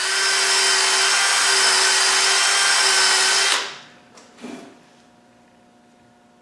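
A workshop tool runs in one steady burst of about three and a half seconds, a loud hissing noise with a steady whine through it, then stops suddenly.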